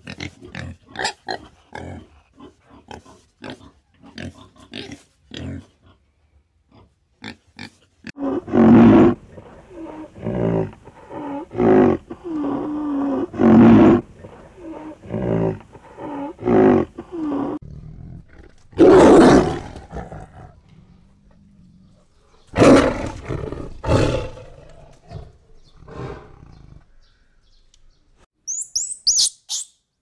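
A warthog grunting in quick short bursts, then a rhinoceros giving loud, deep calls one after another with short pauses, and a few high chirps near the end.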